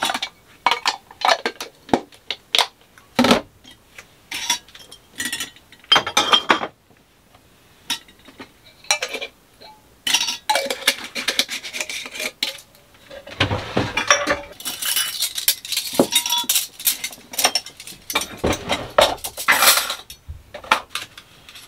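Dishes and glassware being handled at a small kitchen sink: repeated clinks and knocks of glass jars, a glass bowl and cutlery against each other and the counter. The clatter becomes denser and noisier in the second half.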